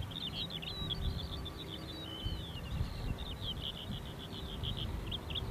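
Distant low rumble of a B-52H Stratofortress's jet engines as the bomber climbs away, with a small bird singing a rapid, high twittering song over it.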